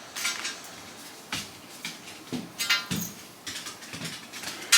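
Plastic packaging rustling and crinkling in bursts as parcels and garments are handled, with a sharp click near the end.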